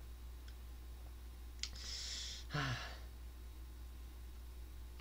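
A man sighs about two seconds in: a small lip click, a breathy exhale, then a short low voiced 'hm' that falls in pitch.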